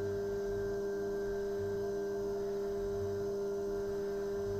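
Haas VF-2SS CNC mill cutting a 6061 aluminium part with a small end mill: a steady, high, pure-sounding hum from the spindle and cutter in the cut. The machinist found that these passes left quite a bit of chatter along the part's edges.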